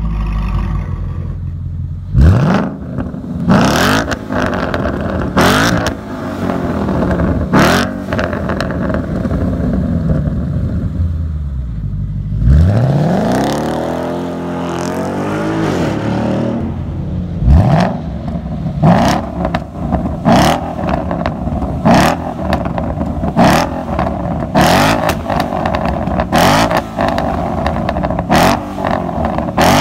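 Ford Mustang GT's 5.0 V8 through an aftermarket cat-back exhaust, idling between sharp free revs. About halfway through comes a longer run where the revs climb and then fall as the car pulls away. In the later part it is blipped quickly, about once a second.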